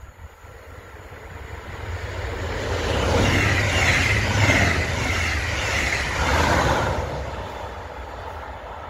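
Red double-deck regional-express train, pulled by an electric locomotive, passing close at speed: wheels rumbling and hissing on the rails. It builds from a distance, is loudest for a few seconds as the coaches go by, then fades as the train moves away.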